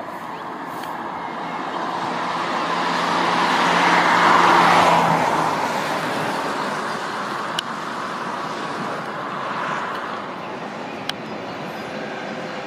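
Traffic noise that swells to a peak about halfway through and fades, like a road vehicle passing, followed by the steady rumble of an electric locomotive and its container freight train approaching on the line. Two short sharp clicks in the second half.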